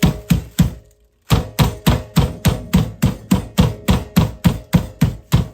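Rolling pin pounding chicken breasts inside a plastic bag on a cutting board to flatten them, a rapid, even series of thuds at about four to five strikes a second. The strikes stop briefly about a second in, then carry on.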